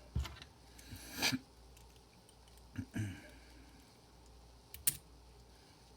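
Small metal tools clicking and tapping on a lock cylinder as it is taken apart at the circlip: a handful of irregular light clicks, the sharpest one near five seconds in.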